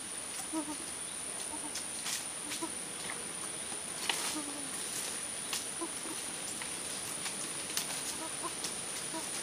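Forest ambience: a steady high-pitched insect drone, with short faint animal calls and scattered clicks and rustles of dry leaves and sticks underfoot and in hand.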